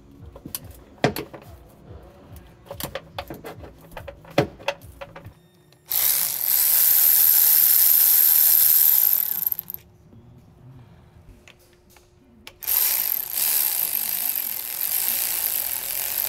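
A Milwaukee cordless electric ratchet runs twice, each time for about four seconds, spinning a bolt on the jet ski's engine. Before that come a few seconds of sharp clicks and metal knocks as tools and parts are handled.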